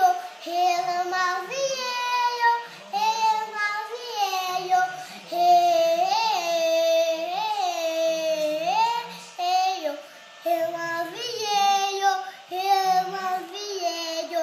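Young girl singing a pop melody on her own, unaccompanied, in phrases with short breaks between them.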